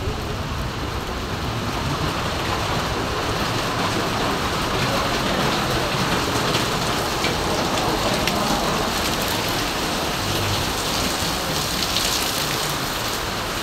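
Steady rain falling: an even hiss with scattered sharper ticks of drops.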